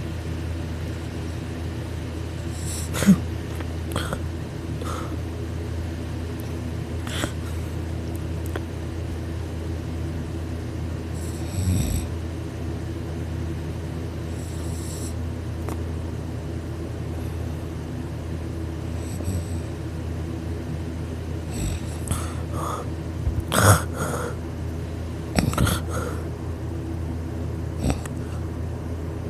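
A low, steady rumble that holds without an obvious breathing rhythm, overlaid by scattered short clicks, knocks and rustles, the loudest about three seconds in and a cluster around twenty-three to twenty-six seconds.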